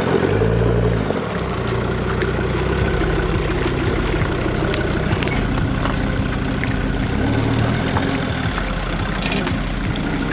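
Jeep Grand Cherokee engine running at low speed as the lifted SUV crawls along a muddy track, revving up briefly twice, just after the start and again about three quarters of the way through, with scattered light clicks and knocks.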